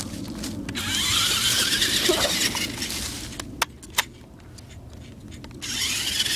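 Toy RC rock-crawler truck's electric motor and gears whining as it drives, rising in pitch in the first couple of seconds. It drops away for about two seconds, with two sharp clicks, then the whine comes back near the end.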